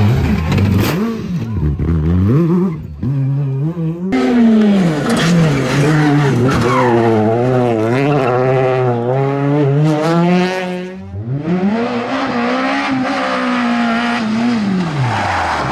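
Rally car engines revving hard through tarmac corners, three cars one after another, with sharp changes about 4 and 11 seconds in. The pitch climbs and drops as each car brakes, shifts and accelerates, wavering quickly in the middle car's run and rising then falling in the last.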